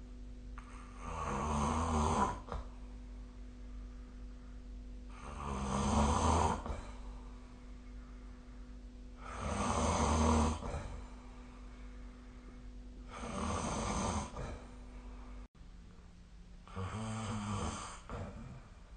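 A sleeping person snoring: five snores about four seconds apart, each lasting a second or so, over a steady low background hum.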